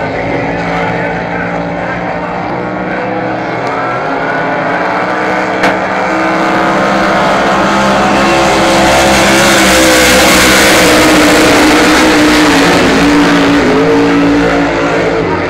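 Several Cracker Box racing boats' V8 inboard engines at full throttle as the boats race past together, several engine notes at once, swelling to the loudest about two-thirds of the way through and then easing off.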